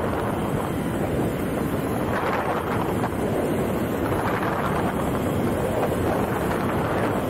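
Wind buffeting the microphone, a loud, steady rushing noise.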